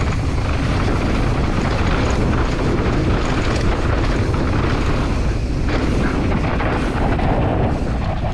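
Wind buffeting the handlebar camera's microphone in a steady loud roar, over the noise of GT Force enduro mountain bike tyres rolling fast on dry dirt.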